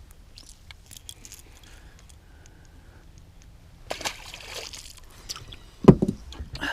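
Handling noises aboard a small fishing boat: scattered light clicks and rattles, a short splash of water about four seconds in, and a dull knock on the boat a little before the end, the loudest sound.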